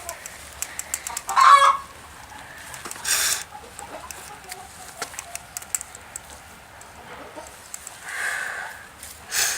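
Intermittent short animal calls: a loud squawk-like call about one and a half seconds in and a softer one near the end, with a few brief noisy bursts in between.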